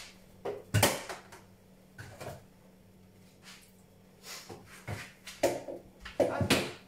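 Refrigerator door being opened and shut, with a few scattered knocks and clunks as something is set inside; the loudest knock comes about a second in, with another cluster near the end.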